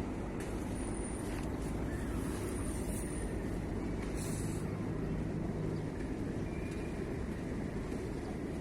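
A steady low engine drone with no change in level, such as a motor running at a constant pace.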